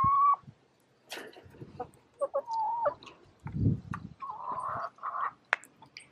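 Chickens, mostly ex-battery laying hens, clucking in short, scattered calls, with a couple of sharp clicks.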